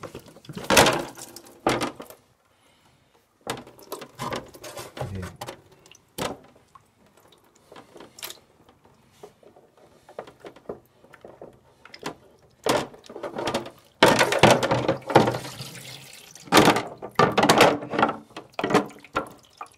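Knocks, clicks and scrapes of hard plastic as the filter housings of an under-sink reverse-osmosis water purifier are unscrewed and pulled off. Water sloshes and drips from the opened housings. The handling gets busier and louder in the last few seconds.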